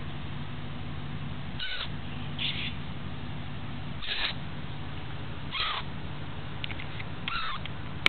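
A nestling bird giving short, high begging calls, five in all, spaced about a second and a half apart, as it gapes to be fed. A steady low hum runs underneath.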